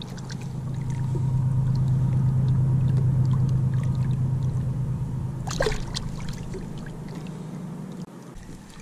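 A boat motor running with a steady low hum that swells over the first few seconds, then slowly fades and drops away shortly before the end. Water splashes and drips from a smallmouth bass being handled in the water at the side of the boat, with the loudest splash about five and a half seconds in.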